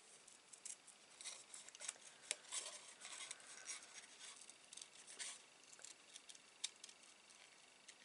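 Small scissors snipping through patterned paper, fussy-cutting around a printed image: a run of faint, irregular snips.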